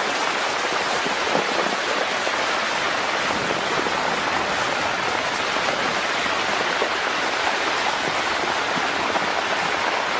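Fast-flowing flash-flood water rushing, a loud steady roar of noise with no breaks.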